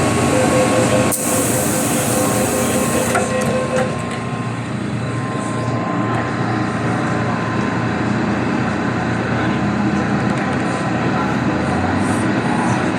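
MTR M-train electric multiple unit heard from inside, with a steady running rumble. About a second in there is a sharp click, then a high hiss that lasts about two seconds.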